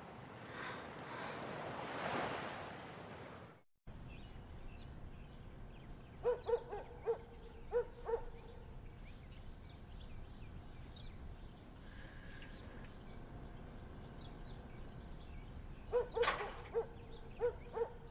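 Surf washing on a beach for the first few seconds, then after a cut, a dog barking in two quick runs of five or six short yelps, one run about six seconds in and another near the end.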